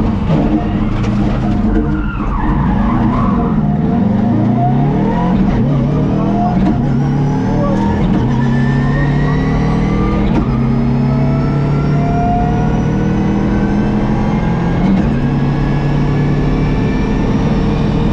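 Subaru Impreza WRX STI rally car's turbocharged flat-four engine under hard throttle: the revs swing up and down for the first few seconds, then climb in long rises broken by brief drops at gear changes, over steady tyre noise.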